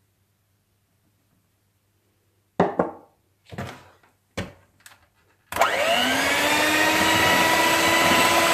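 A few short knocks and clatters, then about five and a half seconds in an electric hand mixer switches on, its motor whine rising as it spins up and then running steadily with its beaters in the waffle batter.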